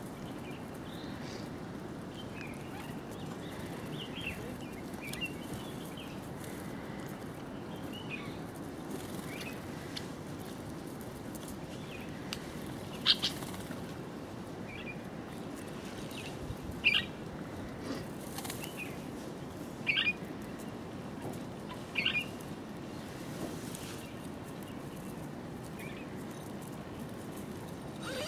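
A mixed flock of small ground-feeding birds (red-eyed bulbuls, masked weavers, canaries and doves) fluttering and chirping over seed, against a steady low background noise. Short high chirps come throughout, and a few sharper, louder ones in the second half.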